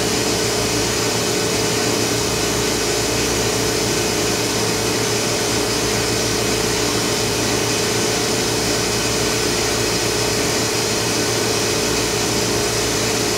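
Steady mechanical drone from the vacuum pumps and ventilation around a plasma etch system, with a constant mid-pitched hum running through it.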